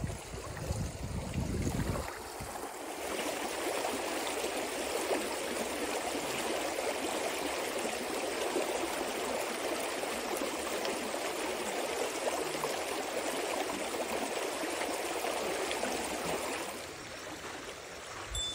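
Shallow, rocky stream running over stones: a steady rush of water. A low rumble sits under it for the first two seconds, and the water sound falls away near the end.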